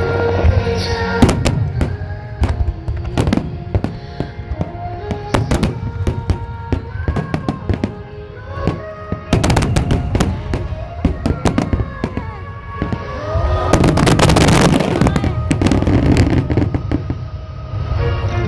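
Aerial fireworks bursting one after another, sharp bangs and crackles, with a dense, loud barrage about fourteen seconds in. Music plays underneath throughout.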